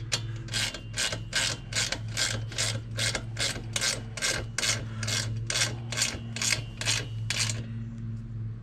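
Socket ratchet wrench worked back and forth to tighten the bolt holding the dump cart's handle: a regular run of short ratchet strokes, about two or three a second, that stops near the end. A steady low hum runs underneath.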